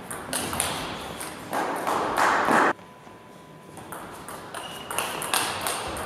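Table tennis ball clicking off the rackets and the table in quick rallies. About one and a half seconds in, a louder burst of noise lasts about a second and cuts off abruptly.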